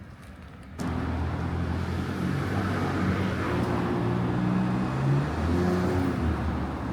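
A road vehicle's engine running close by amid traffic noise, its pitch drifting up and down. It cuts in abruptly just under a second in.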